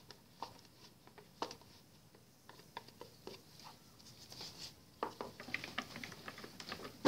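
Wire whisk stirring thick soap batter in a plastic bucket, giving faint, irregular clicks and taps against the sides, busier about five seconds in.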